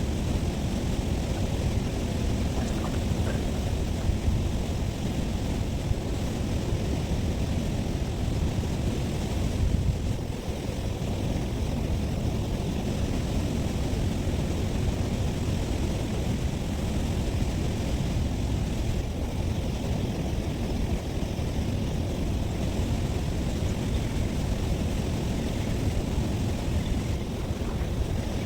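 Steady wind rumbling on an outdoor phone microphone, a constant low noise with no distinct events.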